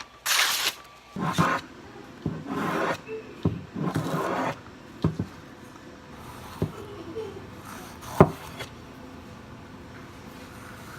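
Freshly sharpened cleaver slicing through magazine paper: four short, papery swishes and rustles in the first few seconds. Then come scattered sharp knocks and taps, the loudest about eight seconds in.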